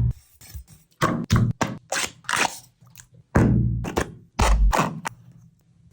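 A run of about ten separate knocks and scrapes in irregular groups, each dying away quickly, typical of cooking utensils and pans being handled.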